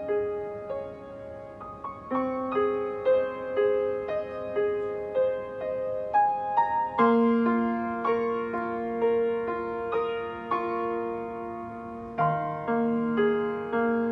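Grand piano played solo: a gentle piece of single notes and broken chords struck one after another and left ringing, with a deeper, fuller chord coming in about seven seconds in.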